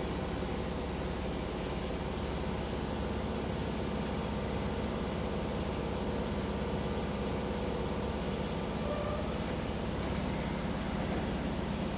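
Kobe Municipal Subway 3000 and 1000 series trains standing at the platform, their onboard electrical equipment humming steadily with several steady tones over a low rumble.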